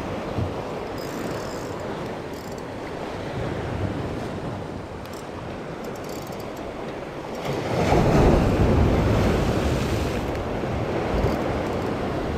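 Sea waves washing and breaking against shoreline rocks, with wind buffeting the microphone. One louder surge comes about eight seconds in.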